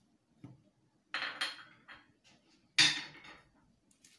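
Small bowls and a cooking pot clinking and knocking on a kitchen counter as ingredients are tipped into the pot: a few separate clatters, the loudest nearly three seconds in.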